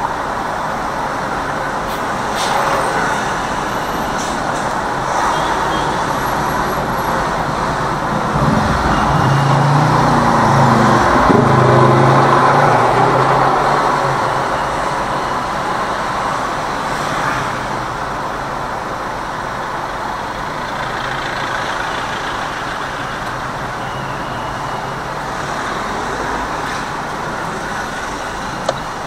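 Steady city traffic and road noise, heard from inside a moving car. A deeper engine sound swells up about a third of the way in and fades out again a few seconds later.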